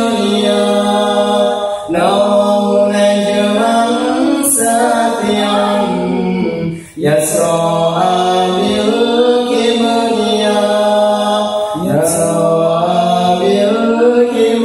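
Voices singing an Islamic sholawat a cappella in harmony, holding long notes, with short breaks for breath about two, seven and twelve seconds in.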